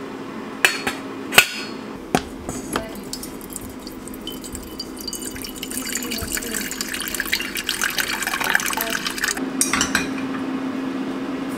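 Two sharp clinks of a stainless steel saucepan being handled, then water running from a water purifier's tap into the saucepan for several seconds, growing louder before it stops suddenly.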